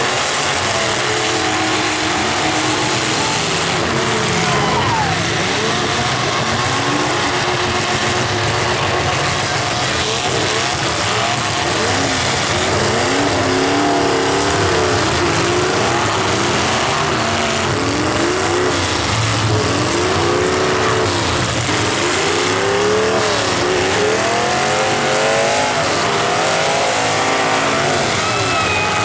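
Several demolition derby cars' engines revving hard at once, their pitches rising and falling over one another in a continuous loud din.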